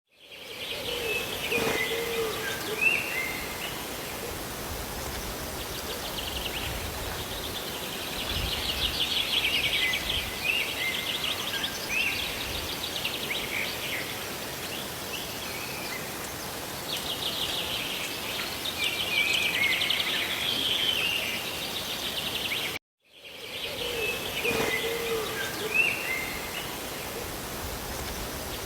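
Steady rush of rain and falling water with birds chirping and trilling over it. The sound drops out for an instant about three-quarters of the way through, then fades back in.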